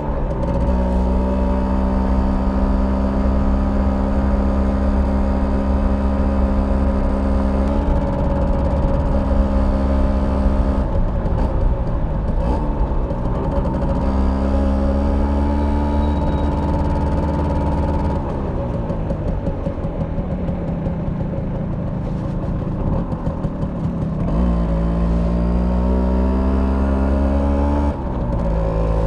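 Stock 1991 Simson S51B's 50cc single-cylinder two-stroke engine running under way. Its pitch holds steady, then drops and climbs again several times as the throttle is opened and closed and the gears change. A long falling pitch about halfway through shows the bike slowing.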